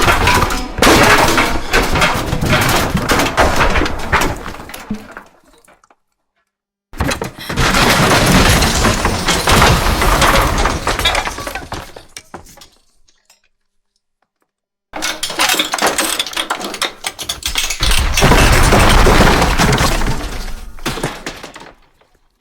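Three ceiling-collapse sound effects play one after another, with short silences between them. Each is a sudden crash of breaking material and falling debris that trails off over about five seconds. The last one swells into a heavier low rumble partway through.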